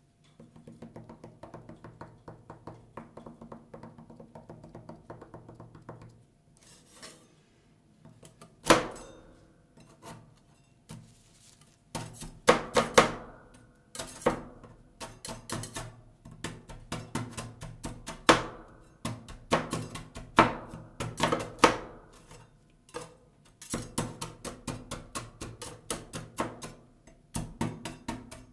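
Rapid light tapping on macarons over the steel plate of a rolled-ice-cream machine, then, from about nine seconds in, loud sharp clacks in quick runs as two steel scrapers chop the macarons against the steel plate.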